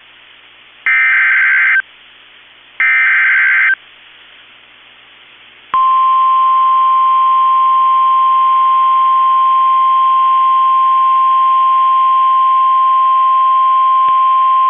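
NOAA Weather Radio emergency alert: two one-second bursts of warbling digital data tones, about a second apart, which are the end of the three-times-repeated SAME alert header. After a short gap a single steady high tone, the weather radio warning alarm tone, sounds for about nine seconds and cuts off. It signals that a warning message, here a severe thunderstorm warning, follows.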